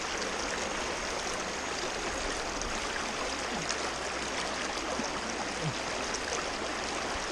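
Steady rushing of the Neversink River's current.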